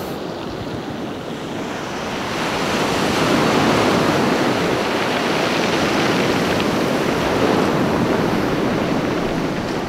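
Sea surf: waves breaking and washing up over a stony beach, growing louder about two to three seconds in, then steady.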